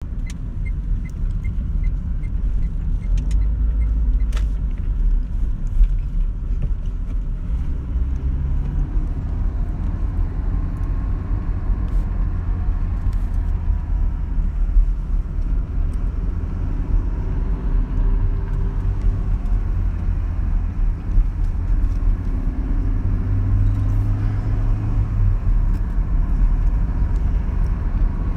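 Inside a moving car: a steady low rumble of engine and road noise, the engine note shifting up and down with speed. A faint regular ticking, about two a second, runs through the first few seconds.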